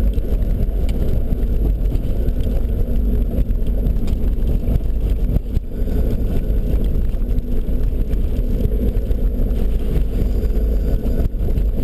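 Nissan Patrol GR Y61 4x4 driving over a rough gravel track, heard from inside the cabin: a steady, loud, low engine and tyre rumble.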